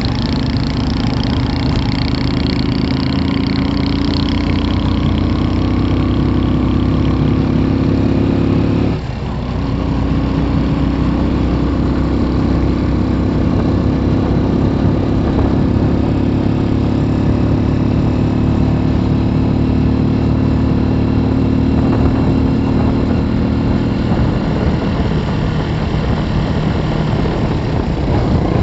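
Vehicle engine running under way, heard from on board over wind and road noise. Its pitch climbs steadily, drops sharply at a gear change about nine seconds in, climbs again, then eases off about twenty-four seconds in.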